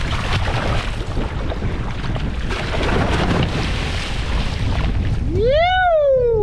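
Wind buffeting the microphone and sea water splashing against a boat's hull as a hooked yellowfin tuna is gaffed alongside. Near the end a single loud whoop sweeps up in pitch and then slides slowly down.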